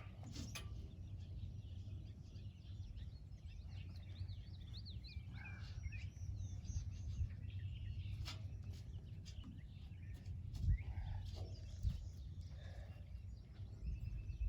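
Songbirds chirping and twittering, busiest a few seconds in, over a steady low rumble, with a few faint knocks.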